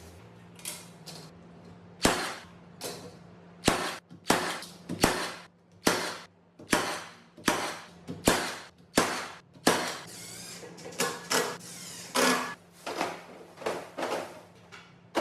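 A run of about twenty sharp knocks, roughly one every 0.7 seconds, each ringing briefly. For a couple of seconds past the middle a steadier noise runs under them, and then the knocks go on.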